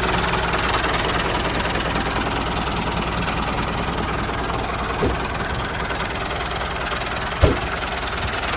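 A small machine running steadily with an engine-like noise, with two short knocks, about five and seven and a half seconds in.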